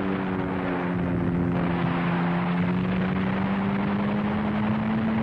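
Propeller warplane's piston engine droning on an old newsreel soundtrack, one steady note that slowly rises in pitch, under constant film hiss.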